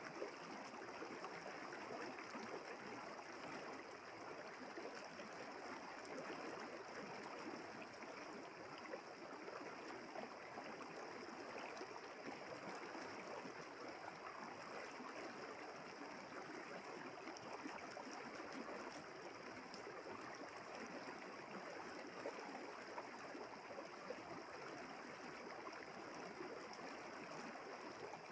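A river flowing steadily.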